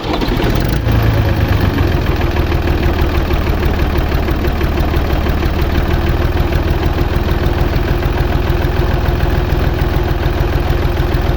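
Tractor engine running steadily at idle, a fast even chugging.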